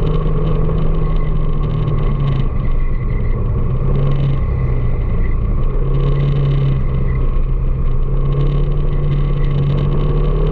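Motorcycle engine running steadily under way, its low hum dipping and rising in pitch a few times, over constant road and traffic noise.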